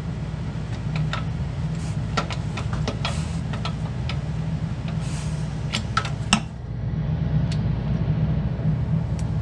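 Hand tools clinking in scattered short metallic clicks over a steady low hum. The hum dips briefly about two-thirds of the way through.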